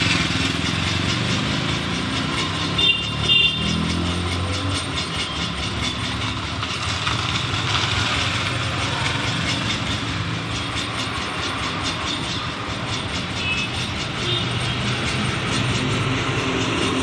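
Street traffic of motorbikes and scooters passing close by, their small engines running over a steady road noise. Short horn beeps sound about three seconds in, the loudest moment, and fainter ones about fourteen seconds in.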